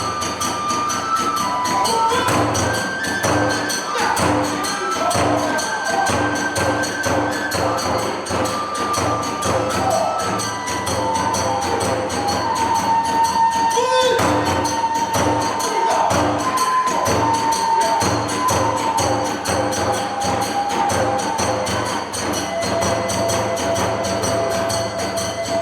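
Kagura hayashi ensemble playing: a bamboo kagura flute carries a melody of held, stepping notes over fast, steady drumbeats and the ringing clash of small hand cymbals.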